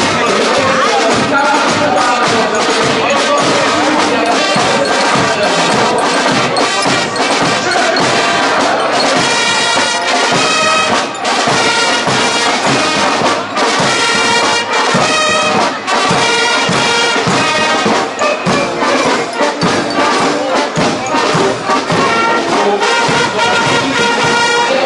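A brass marching band playing as it marches past, with trumpets and trombones carrying the tune over snare and bass drums beating steadily.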